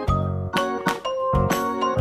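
Background music with a steady beat and bright, tinkling notes.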